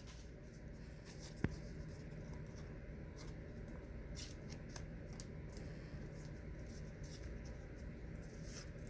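Faint, sparse clicks and light rustles of trading cards being handled and slid through the hand, over a low steady hum.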